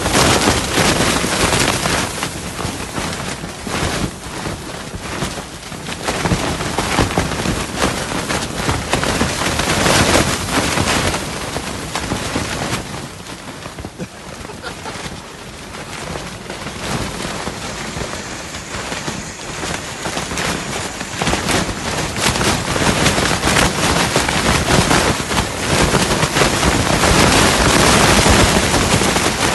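Tent fabric flapping and snapping hard in a gale, a rapid crackle of the tent walls with wind buffeting the tent. It eases for a few seconds around the middle, then builds again to its loudest near the end.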